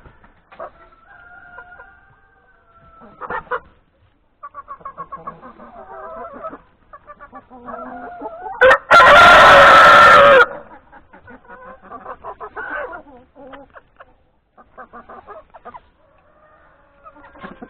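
Hens clucking, with one loud rooster crow lasting nearly two seconds, about nine seconds in.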